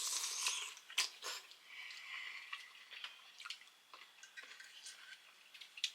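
Someone chewing a bite of pickle, with scattered soft clicks and mouth noises.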